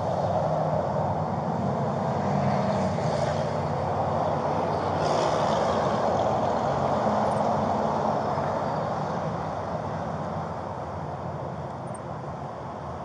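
Road traffic noise: vehicles going by, growing louder for a few seconds and then easing off toward the end.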